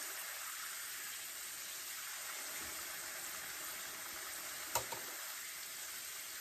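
Potato slices deep-frying in hot vegetable oil, a steady sizzle, with one sharp click a little before the end.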